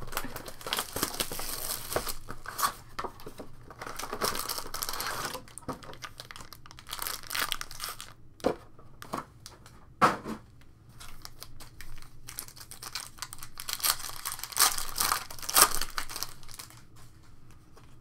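Foil trading card pack wrappers and box packaging crinkling and tearing as the packs are handled and opened, with a few sharp clicks and taps in between.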